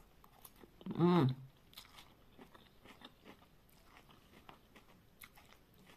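A person eating noodles close to the microphone: faint small clicks and smacks of chewing, with one short hummed vocal sound about a second in.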